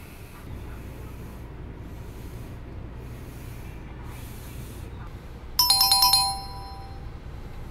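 A bright chime of several quick ringing strikes about two-thirds of the way through, dying away within about a second, over the steady low hum of the ferry cabin.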